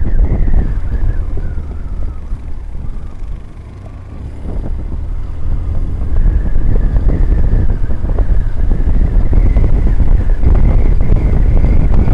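Wind buffeting the microphone over the low rumble of a BMW R1150GS boxer-twin motorcycle on the move. About three to four seconds in, the engine note falls and the sound eases as the bike slows for a bend, then rises again as it speeds back up.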